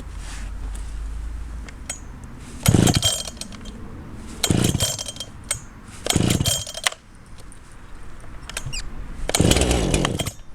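Zomax 74 cc two-stroke chainsaw engine revved in four short, loud bursts between quieter running.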